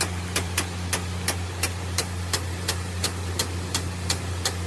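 Large impact-type rain gun sprinkler ticking regularly, about three sharp clicks a second, as its arm knocks the high-pressure jet around the circle. Under it runs a steady low engine-like hum.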